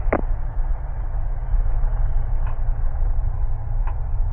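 Steady engine and propeller drone of a single-engine Cessna, heard in the cockpit through the headset intercom, with a click near the start.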